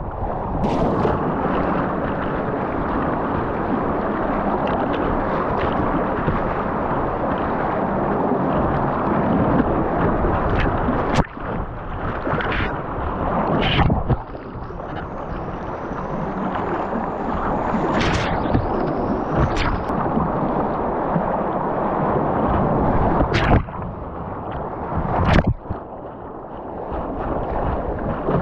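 Whitewater rapids rushing and splashing against the bow of a kayak, heard close up from a camera mounted on the hull. Water slaps sharply against the bow or the camera housing about six times, every few seconds.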